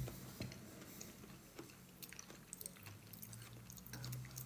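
A person chewing a mouthful of gnocchi with the mouth closed: faint, soft chewing with small wet mouth clicks. A sharp click comes right at the start, and a low steady hum runs underneath.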